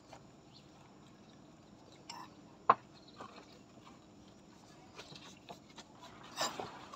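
Quiet background broken by a few scattered clicks and short noises. The loudest is a single sharp click just under three seconds in, and a brief noisier burst comes near the end.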